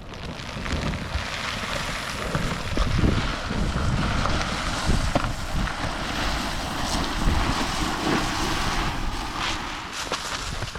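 Wind buffeting the microphone outdoors: a steady rumbling noise with a few faint knocks.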